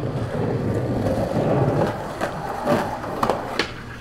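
Skateboard wheels rolling on concrete, then several sharp wooden clacks as the board strikes.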